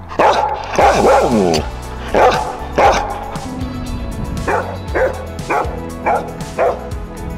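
Samoyed barking and yipping: a drawn-out, wavering bark-howl first, then two barks, then five short yips about half a second apart. The dog is objecting to his owners kissing.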